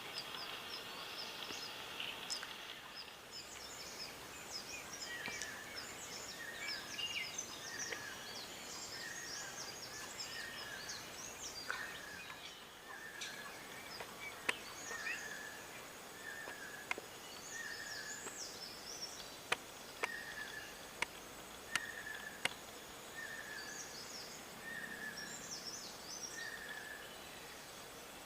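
Wild birds calling over a steady outdoor hiss. One bird repeats a short note about once a second, while others give high, quick chirps and whistles. A few sharp clicks come in the middle.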